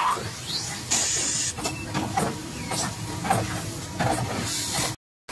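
Metal-spinning lathe running as a roller tool presses a spinning sheet-metal blank onto its mandrel: an uneven mechanical scraping and clatter, with a short burst of hiss about a second in. The sound cuts out briefly just before the end.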